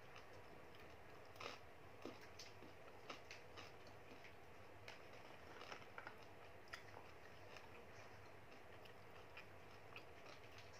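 Faint, scattered clicks and taps of someone eating with wooden chopsticks, picking food out of a plastic lunch container, at irregular intervals over a quiet room hiss.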